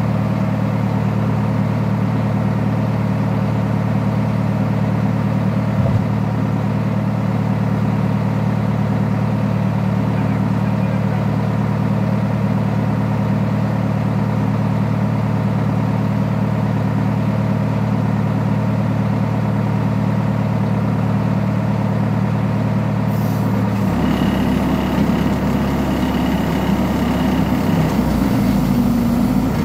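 A heavy vehicle's engine idling steadily. About three-quarters of the way through, its note changes abruptly and turns rougher.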